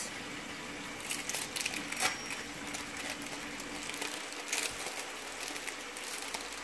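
Thin plastic film crinkling in short spells, about a second in and again near the middle, as an individually wrapped processed cheese slice is peeled out of its wrapper, over a faint steady hum.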